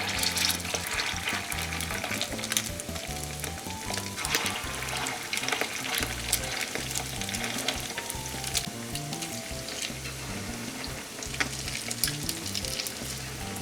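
Food frying in hot oil in a pan: a steady sizzle full of small crackles, louder at the start and again about four seconds in. Soft background music plays underneath.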